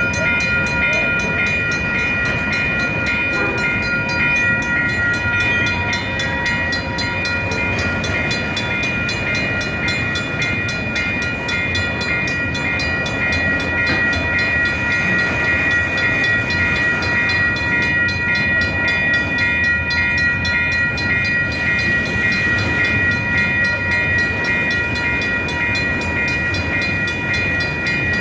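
Double-stack intermodal freight train rolling slowly past, a steady rumble and rattle of the cars. Over it a grade-crossing bell rings without a break, in an even repeating pulse.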